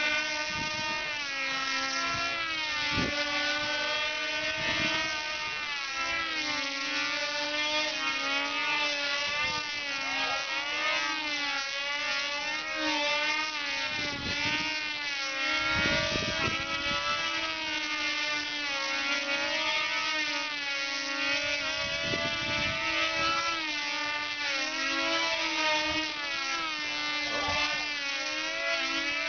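Several RC combat model airplanes' small engines buzzing overhead at the same time, each high pitch sliding up and down as the planes dive, climb and turn.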